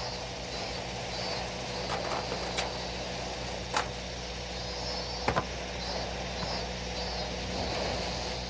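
Steady background hum and hiss, with faint short high chirps repeating and a few sharp clicks, the loudest a quick pair about five seconds in.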